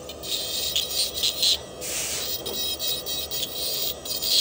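Dental lab handpiece with a rotary bur grinding down a model tooth, a high-pitched hissing whine that comes and goes in short bursts as the bur touches and lifts off. It is cutting a reduction of about 2 millimetres for a crown prep.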